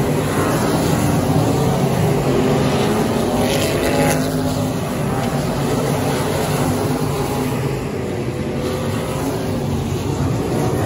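A pack of limited modified dirt race cars racing on a dirt oval, several engines running hard at once with their pitches overlapping and shifting as the cars pass close by.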